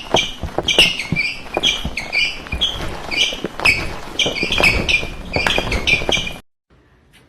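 A small bird chirping over and over in short, high calls, several a second, with light taps and clicks mixed in. The chirping cuts off suddenly near the end.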